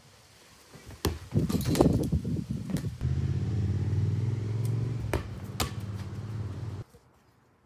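A few sharp knocks, then a low, steady engine-like hum for about four seconds that cuts off abruptly.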